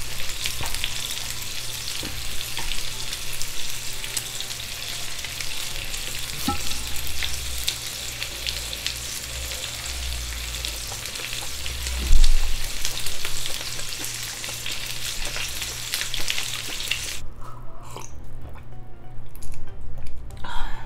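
Pork large intestines (makchang) sizzling on an electric grill pan: a steady frying hiss with light chopstick clicks, and a loud low thump about twelve seconds in. The sizzle cuts off suddenly near the end, leaving quiet gulps of a drink.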